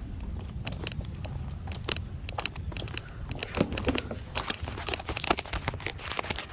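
Phone microphone rubbing against clothing as it rides on a hip: irregular crackling and scuffing over a low rumble.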